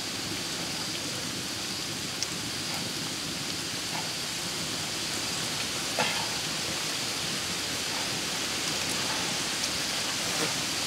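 Steady outdoor hiss with a faint high whine, and a few light clicks as garlic and chilli pieces are peeled and dropped into a stone mortar, the clearest about halfway through.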